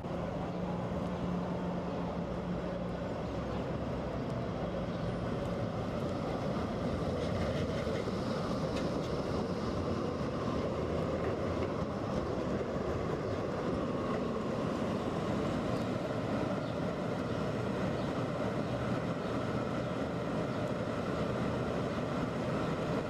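Tatra KT4D articulated trams running past on street track: a steady running noise of wheels on rails and machinery, with a low hum during the first three seconds.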